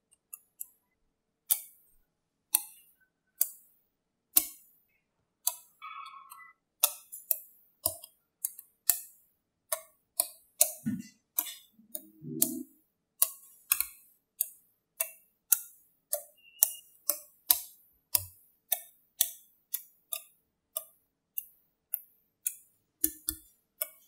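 Small magnetic balls clicking as they snap one by one onto a sphere of magnet balls: a few scattered sharp clicks at first, then a steady run of clicks about every half second.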